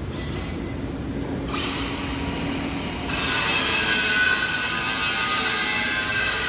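Abrasive grinder cutting steel: a hiss begins about a second and a half in, and about three seconds in it turns much louder into a harsh, many-toned metallic grinding as the disc bites into the steel and throws sparks.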